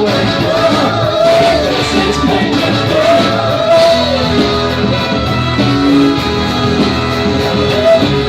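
Live band playing loud guitar-driven rock, with a voice singing over it.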